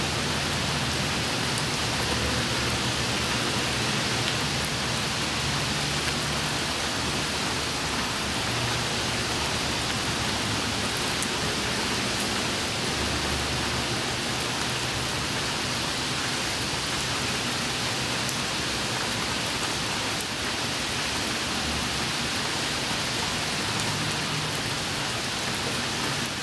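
Steady rain falling on wet pavement: an even hiss with now and then a single drop ticking close by.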